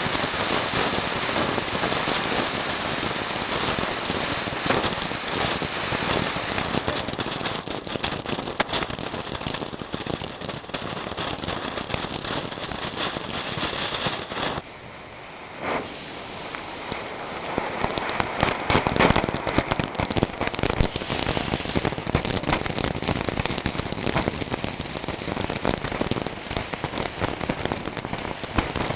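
Fireworks going off right over the microphone: a continuous hiss thick with rapid crackling pops, easing off briefly about halfway through and then building again.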